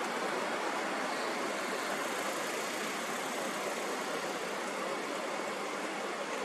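Steady, even hiss of noise with no rumble, no rhythm and no change in level.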